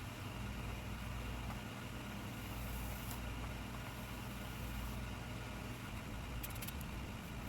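RevAir reverse hair dryer running steadily, its suction motor giving a constant low hum and airy rush as it draws a section of hair into its tube. A few faint clicks come near the end.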